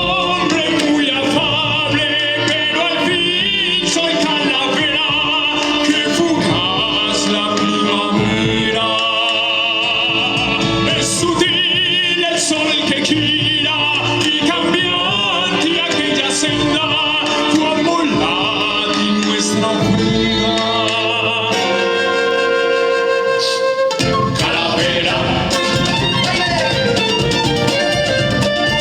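Band music: an instrumental passage of a song, with a bowed string melody over the accompaniment.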